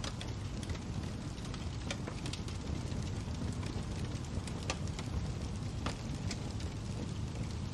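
Fire crackling: irregular sharp snaps and pops over a steady low rumble.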